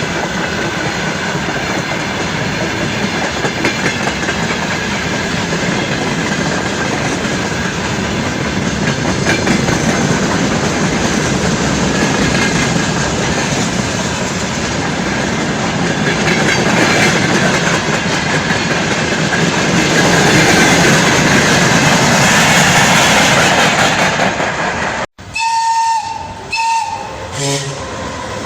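Freight wagons rolling past: a steady rumble with the clickety-clack of wheels over rail joints, growing louder in the second half. About 25 seconds in the noise cuts off abruptly, followed by a few short tones.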